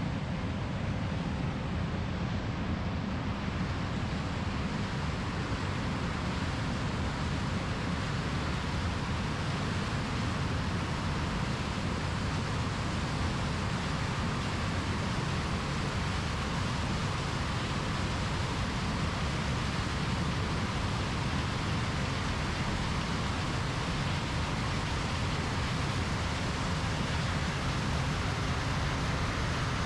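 John Deere combine harvester running steadily as it harvests corn: a constant machine drone with no changes.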